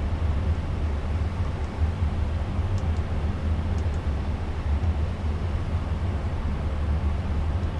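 Steady low hum and hiss of a powered-up Boeing 777-200F cockpit's running systems. A couple of faint clicks about three and four seconds in come as the display-select buttons are pressed to change synoptic pages.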